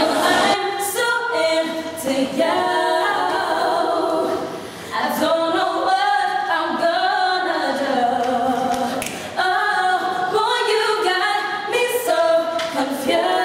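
Three teenage girls singing a cappella together in harmony, with no instruments, in phrases broken by short breaths about five and nine seconds in.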